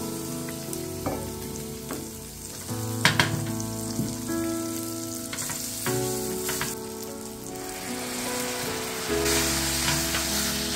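Spaghetti frying in garlic and olive oil in a stainless steel pan, a steady sizzle that swells as the pasta is tossed with tongs, with a few sharp clicks of the utensils against the pan. Background music plays underneath.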